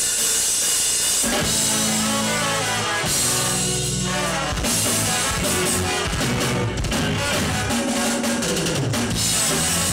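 A ska-punk band playing live at full volume: drum kit, electric guitar, bass guitar and a horn section of trombones and trumpet. Held horn-like notes stand out between about one and three seconds in.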